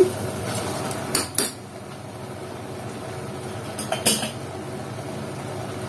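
A metal mesh strainer knocking against the rim of a pressure cooker as drained soaked rice is tipped in: two quick metallic clinks just over a second in and another about four seconds in, over a faint steady hiss.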